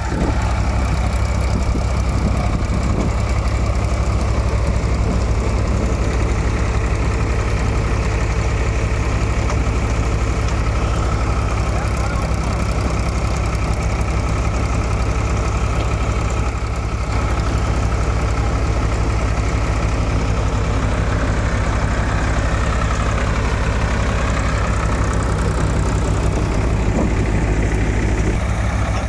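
Tractor-powered thresher running steadily while threshing chickpea plants: a constant low engine drone with a fast, even pulse from the machine.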